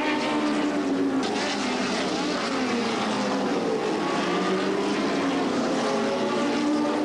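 Several historic sports-racing car engines running hard on the circuit. Their pitch rises and falls and crosses over as the cars accelerate, change gear and pass.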